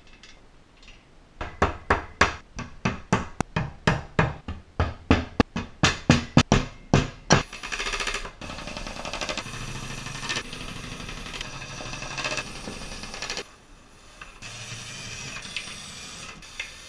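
About twenty sharp knocks, roughly three a second, then a Milwaukee Surge impact driver running as it drives screws through the metal shelf track, a run of about six seconds, a short pause, and a second run near the end.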